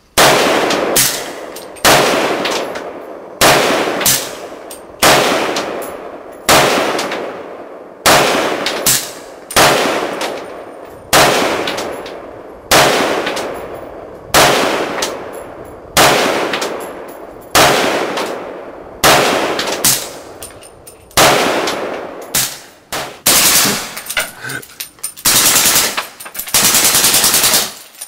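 Suppressed rifle shots, one about every second and a half, each trailing off in echo; from about 20 seconds the shots come faster, ending in two long full-automatic bursts near the end.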